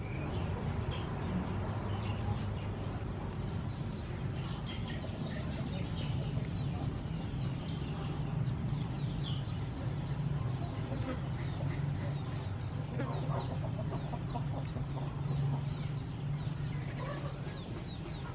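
Chickens clucking on and off over a steady low hum.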